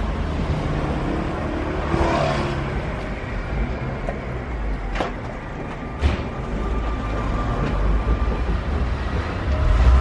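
Road traffic driving over a railway level crossing with the barriers up, with two sharp thumps about a second apart midway, typical of a car's wheels crossing the rails. A Keio Line commuter train moves off from the station platform beyond, with a thin steady whine in the second half.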